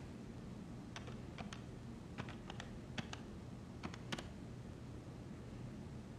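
Buttons on an antique-style desk telephone pressed one after another to dial a number: about ten short, light clicks in uneven pairs over some three seconds, with no dial tones.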